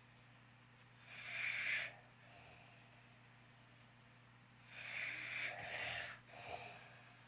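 Snoring during sleep: two loud, noisy snoring breaths, a short one about a second in and a longer one near the end that breaks off and resumes. A steady low hum runs underneath.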